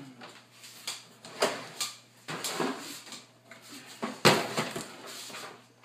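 Handling noises: a series of knocks and clatters as things are moved about on a table, the loudest a little past four seconds in.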